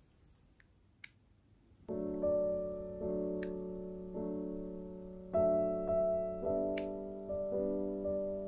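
Piano music starting about two seconds in: slow chords, each struck and left to ring and fade before the next. Before it there is only faint room tone and a single click.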